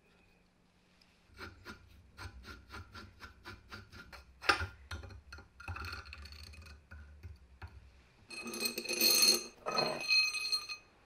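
Steel drill-press parts handled by hand, giving a run of light metallic clicks about four a second with one sharp knock. Near the end there are a few seconds of jangling metal rattle with a ringing edge as a ball thrust bearing is turned on the threaded steel rod.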